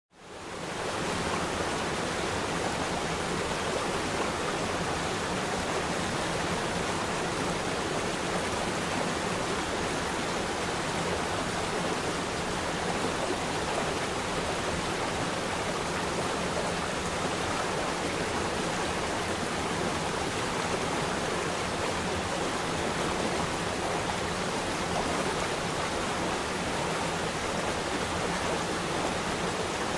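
Waterfall: water pouring and rushing as a steady, even noise that fades in over the first second or so and then holds level.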